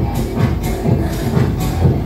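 Loud electronic dance music with a steady, thumping beat of about two beats a second.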